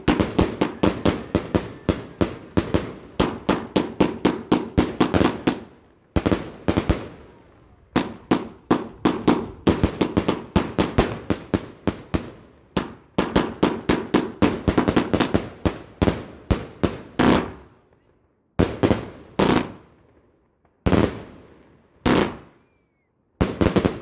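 Multi-shot fireworks battery firing shot after shot, several sharp bangs a second, in long volleys with brief pauses. Toward the end it breaks into shorter, separate bursts.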